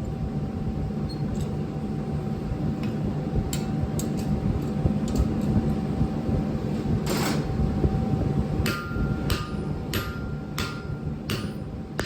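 Hammer blows on steel bar stock at the anvil, evenly paced at about three blows every two seconds, each with a ringing note, starting about nine seconds in. Under them runs a steady low roar, with a few scattered sharp clinks before the blows begin.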